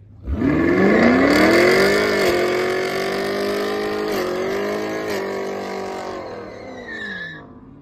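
Chevrolet Camaro doing a burnout: the engine revs up sharply about a third of a second in and is held at high revs with a few brief dips while the rear tyres spin. The revs then fall away near the end.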